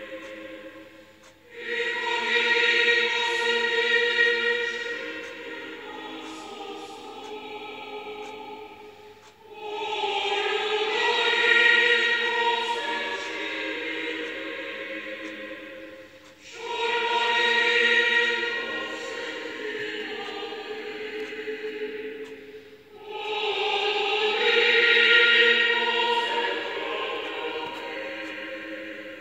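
Choir singing in four long phrases, each starting loud and tailing off, with short breaks between them about every seven seconds.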